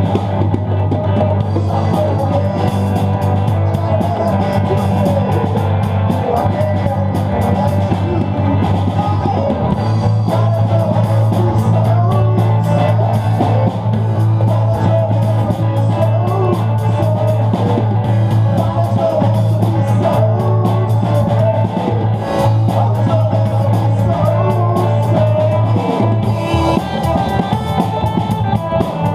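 Rock band playing: electric guitar lines over bass and drums, with some singing.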